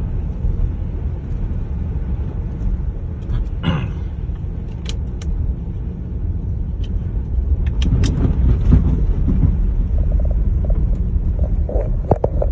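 Steady low cabin rumble of a 2019 Jeep Grand Cherokee driving on a snowy highway: road and tyre noise heard from inside. A brief falling swoosh comes about four seconds in, and a few sharp clicks come through the rumble.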